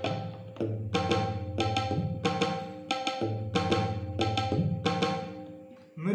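Yamaha PSR-I500 keyboard playing a built-in mridangam rhythm: pitched drum strokes in a repeating pattern over a low held tone. It stops just before the end.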